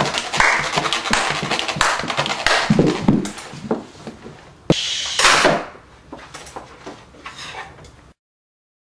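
Irregular knocks, thumps and clatter of children handling objects and moving about in a small room, with one sharp knock about five seconds in; the sound cuts off abruptly near the end.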